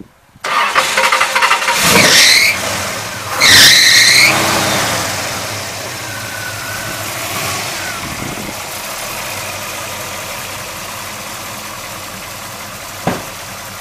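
1972 Chevelle's 355 cubic-inch small-block Chevy V8 fires up about half a second in, is revved twice with a high squeak on each rev, then settles to a steady idle. A short sharp click near the end.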